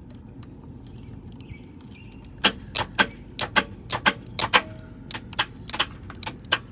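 A run of sharp, irregular clicks, several a second, starting about two and a half seconds in. They come as a jumper wire is touched across the starter relay socket terminals of a 2004 Jeep Grand Cherokee WJ with the key on, to bypass a faulty ignition switch.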